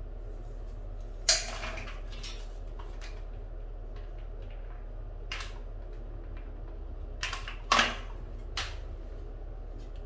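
Hand tools clacking and knocking as they are handled and set down on a tiled floor: a few sharp, separate knocks, the loudest about a second in and another near eight seconds, over a steady low hum.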